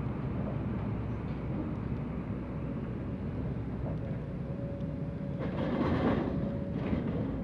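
Excavator's diesel engine and hydraulics running steadily at a demolition job, with a thin steady whine over the low rumble. About five and a half seconds in, the noise swells louder for about a second, as the machine works.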